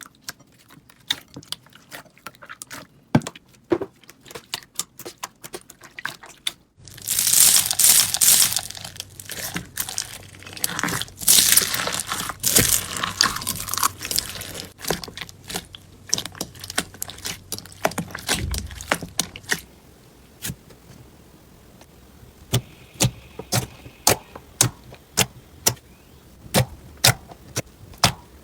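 Slime being squeezed, pressed and stretched by hand, giving sharp clicks, pops and crackles. The crackling turns dense and continuous from about seven seconds in for several seconds, then thins to single clicks every half second or so.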